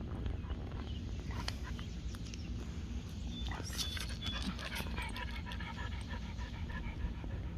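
A dog panting, with scattered small clicks and a few short high-pitched sounds partway through.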